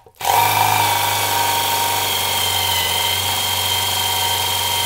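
Cordless impact driver running forward with a screw-extractor bit, its hammer rattling steadily as the bit drills a hole into the head of a stripped screw in wood.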